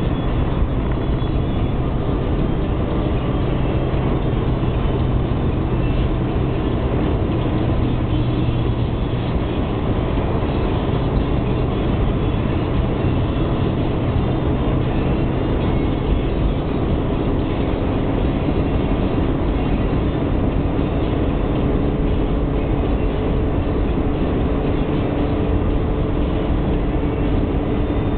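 Car cruising at motorway speed, heard from inside the cabin: steady tyre and wind noise with a low drone, whose pitch shifts to a higher hum about halfway through.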